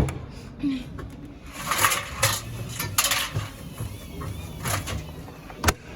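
Sharp clicks and clattering: a sharp click at the start, scattered clatters in the middle and another sharp click near the end.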